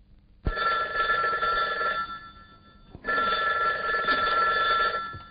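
Landline telephone ringing twice, two long rings with a short gap between them, each cutting off sharply.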